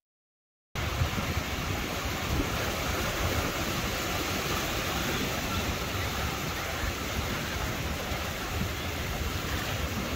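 Sea surf washing onto a beach as a steady rushing noise, with wind rumbling on the microphone. It starts suddenly just under a second in, after a moment of silence.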